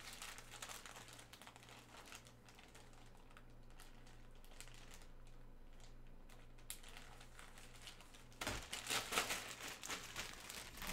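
Plastic bag crinkling as it is handled, faint at first and louder for the last couple of seconds.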